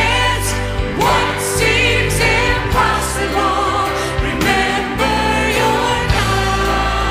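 Contemporary worship song performed live: vocal soloists singing into microphones, backed by a choir and an orchestra over sustained bass notes.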